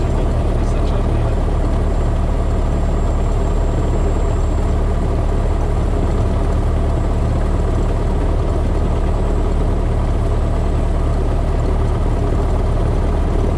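Single-engine light aircraft's piston engine idling steadily with the propeller turning, heard from inside the cockpit while the plane holds at the runway threshold before takeoff.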